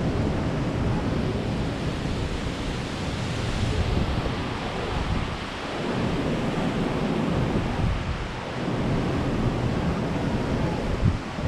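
Storm wind gusting across the microphone over heavy ocean surf breaking on the shore, rising and falling in surges.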